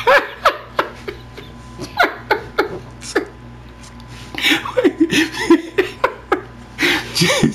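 A man's voice making short, repeated non-speech sounds in several groups, with a quieter stretch in the middle.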